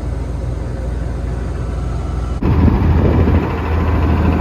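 Heavy truck engine running steadily at low revs. About two and a half seconds in it cuts abruptly to a louder, rougher rumble.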